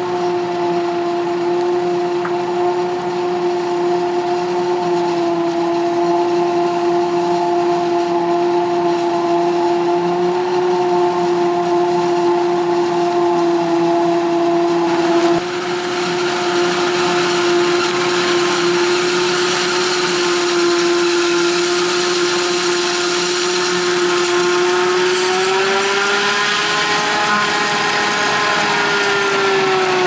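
Claas Jaguar 840 forage harvester chopping maize: a steady high-pitched whine from its chopping gear over the engine and crop flow, the pitch rising slightly a few seconds before the end and then falling back.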